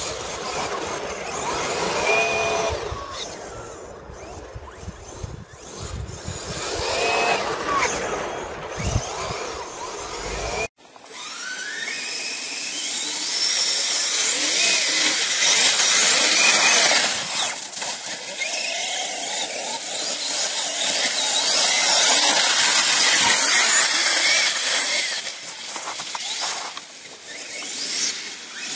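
A radio-controlled car's motor whining, rising and falling in pitch as it drives, with low wind rumble on the microphone. About ten seconds in, the sound cuts to a Losi DBXL Flux, a 1/5-scale brushless electric buggy, revving through slush, its high whine climbing and dropping repeatedly.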